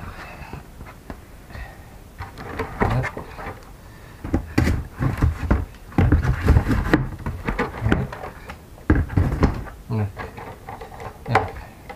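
Cardboard box pieces being lifted and slid away from around a model crawler: irregular scraping, rubbing and knocking of cardboard.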